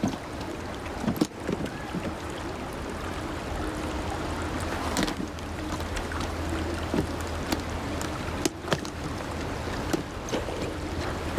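Waterside ambience: a steady low hum under a soft wash of water, with scattered small knocks and clicks, as of a wooden boat.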